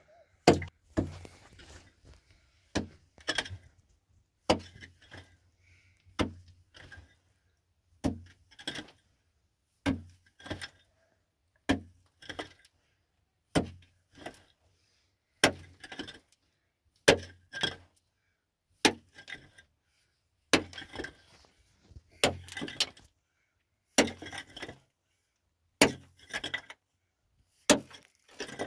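Heavy strikes repeated at an even pace, about one every second and three-quarters, each often followed by a lighter knock or clatter.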